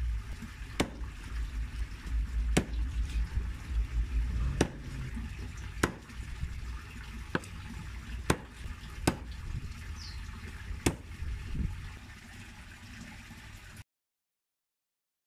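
Cleaver chopping a raw whole chicken into pieces on a wooden chopping block: about ten sharp chops a second or two apart, over a low background rumble. The sound cuts off suddenly shortly before the end.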